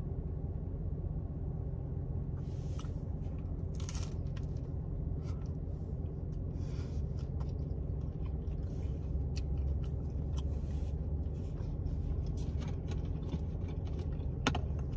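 Close-up chewing of a thin, crispy St. Louis-style pizza square, with scattered crunches of the crust, most around three to four seconds in. A steady low hum sits underneath.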